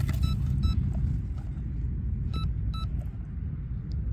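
Short high warning beeps from the RC boat's electronic speed controller, coming in pairs about half a second apart, twice: a fault tone that the owner takes to mean the setup got too hot or lost power. Under them, a steady low rumble of wind on the microphone is the loudest sound.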